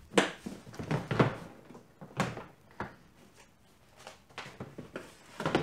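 Latches of a black hard plastic carrying case snapping open, with several sharp plastic clacks in the first three seconds, then more knocks near the end as the lid is lifted open.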